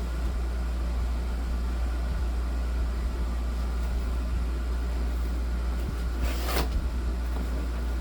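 A steady low hum throughout, with one brief tearing sound from the cardboard box being opened about six and a half seconds in.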